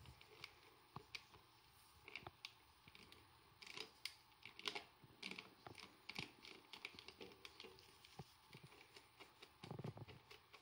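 Bicycle chain links clicking and rattling faintly as the chain is handled and moved by hand: a run of light, irregular clicks.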